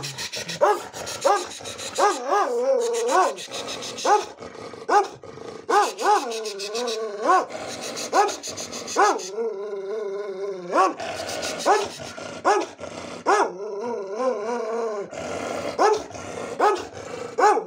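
A dog barking over and over at the person in front of it, with short sharp barks about once or twice a second and, now and then, a longer wavering drawn-out bark.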